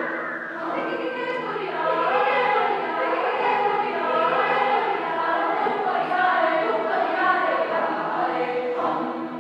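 Mixed choir of male and female voices singing, low notes held steady beneath moving upper parts.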